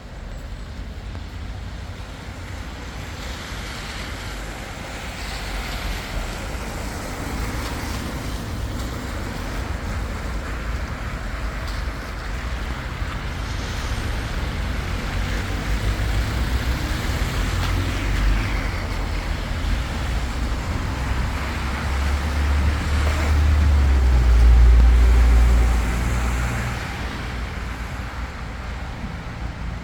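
Steady rain with road traffic on a wet street: a vehicle's low rumble builds and passes, loudest about three quarters of the way through, over the constant hiss.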